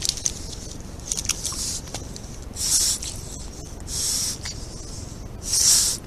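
European otter snuffling right at a camera trap's microphone: three short, loud, breathy huffs about a second and a half apart, after a few small clicks and rustles in the first second or so.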